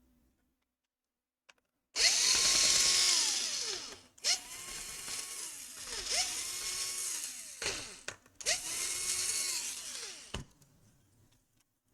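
Small electric screwdriver driving out laptop screws in three runs, its motor whine rising in pitch as it spins up, holding, then falling as it slows.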